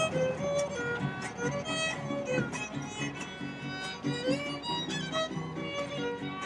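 Violin playing a quick melody with slides between notes, over a rhythmic strummed string accompaniment.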